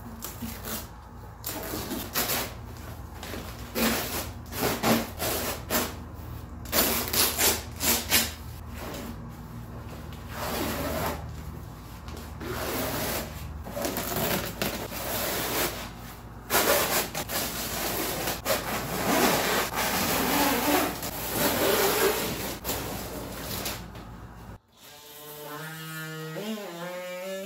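Plastic sheeting and fiberglass cloth rustle and rub as they are handled and smoothed by hand over a plywood panel, with a steady low hum underneath. Near the end a cordless oscillating multi-tool whirs up to speed with a rising whine and then runs steadily.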